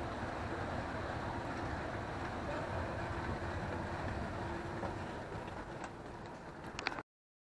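Escalator running: a steady mechanical rumble from the moving steps and drive, with a faint steady hum in it. It eases a little near the end, a few light clicks follow, and then the sound cuts off suddenly.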